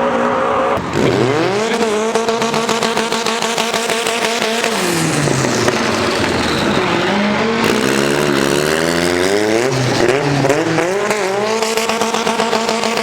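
A performance car's engine revving hard: the revs climb sharply about a second in and are held high for about four seconds, then drop. Later the revs climb again in several steps, rise once more, and fall near the end.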